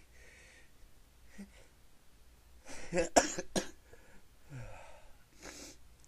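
A person sneezing: a loud cluster of sharp bursts about three seconds in, with breathing before and after.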